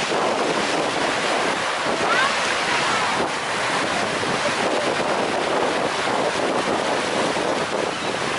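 Steady wind buffeting the microphone over the rushing wash of choppy sea water around a moving boat.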